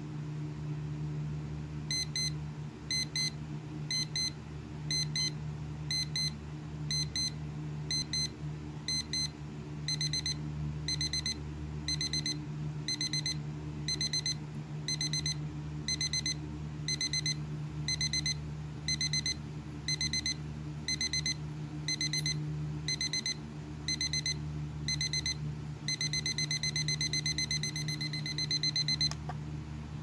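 TLBTS450 digital alarm clock beeping in an escalating pattern: short high-pitched beep groups once a second, growing longer after about ten seconds, then turning into continuous rapid beeping for the last few seconds before it cuts off. A steady low hum runs underneath.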